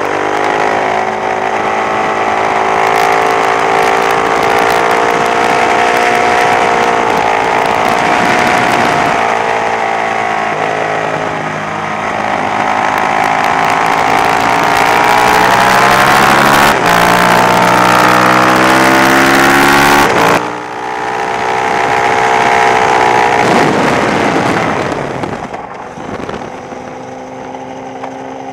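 Sport motorcycle engine pulling hard at high revs, its pitch climbing and dipping as the bike accelerates through the gears, with wind and road rush over it. About 20 seconds in the throttle shuts suddenly and the engine note falls, and from about 25 seconds on it runs lower and quieter as the bike slows.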